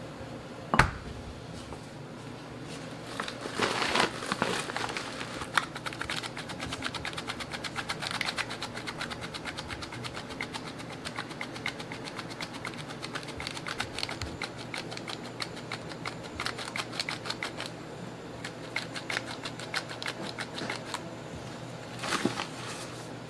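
A handheld flour sifter cup worked over a stainless-steel bowl gives a fast, uneven run of clicks and rattles as flour falls through the mesh into the crepe batter. A single sharp knock comes about a second in. The whole runs over a steady low hum.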